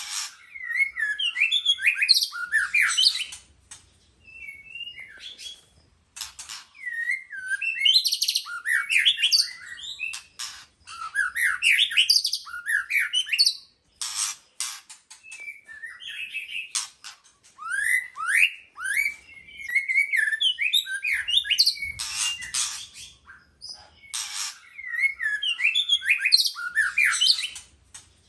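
White-rumped shama singing: rich phrases of rapid whistled glides mixed with sharp clicking notes, each a few seconds long, repeated about four times with brief pauses between.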